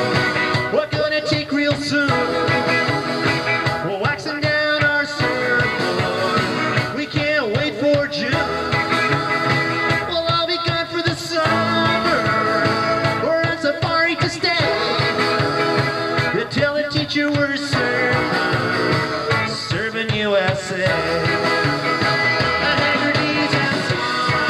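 Live rock band playing an upbeat 1960s-style surf-rock number, with singing.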